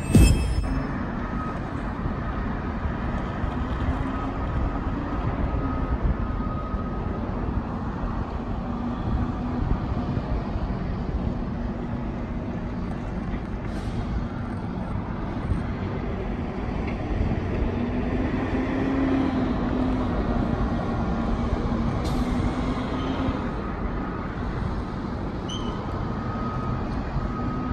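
Steady outdoor rumble of passing road vehicles and distant machinery, with a low wavering engine hum that swells about two-thirds of the way through.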